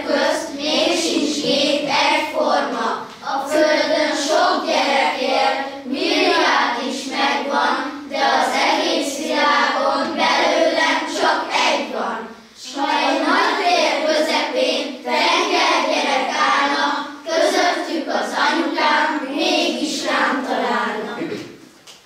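A group of children singing a song together, in phrases with a short breath pause about twelve seconds in; the singing stops shortly before the end.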